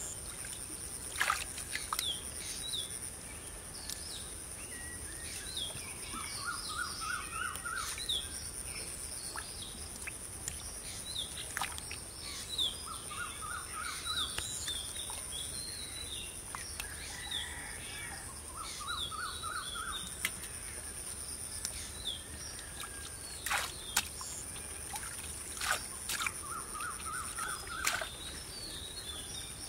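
Birds chirping, one repeating a short rapid trill of about five notes every several seconds, over a steady high hiss. Now and then come sharp clicks and splashes from a hand groping in a muddy, water-filled hole.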